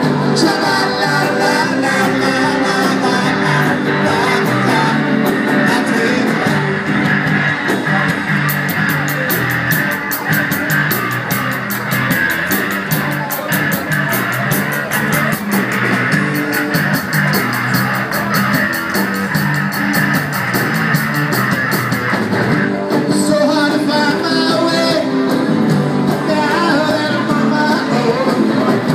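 Live rock and roll band playing dance music: guitars with a singer, and a steady fast high ticking through the middle.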